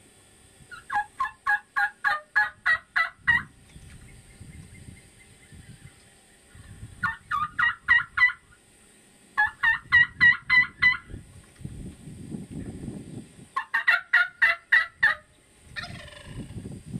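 Turkey yelping: four runs of about eight to ten evenly spaced yelps, each run a few seconds long, with a short rattling turkey call near the end.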